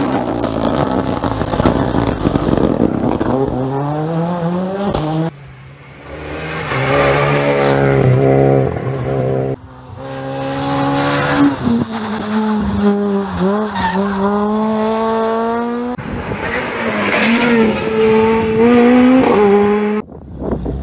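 Rally cars at full throttle: the engine note climbs in each gear and drops sharply at every upshift. The sound breaks off abruptly a few times as one car's run gives way to another's.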